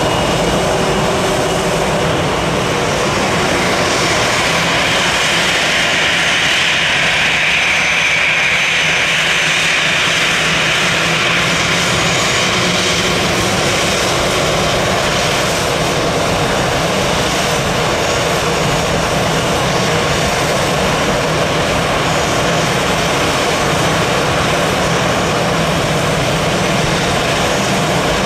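Airbus A320 jet engines running at taxi power as the airliner rolls along a wet runway, a steady jet whine and hiss. The whine swells between about 4 and 12 seconds in as the aircraft passes closest, then eases off.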